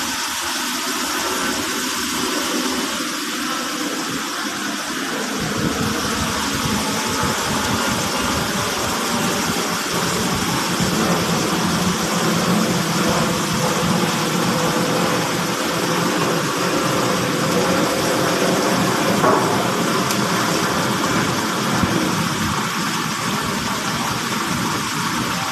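Steady rushing of water gushing out of the restored supply line, the flow flushing out rust. It swells a little about ten seconds in.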